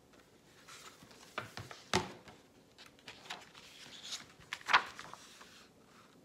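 Pages of a picture book being turned and handled: paper rustling with a few sharp flicks, the loudest about three-quarters of the way through.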